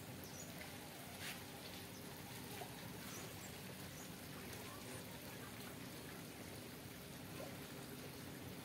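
Quiet outdoor background: a steady low hiss with faint distant voices, a few small brief chirps, and one short tap about a second in.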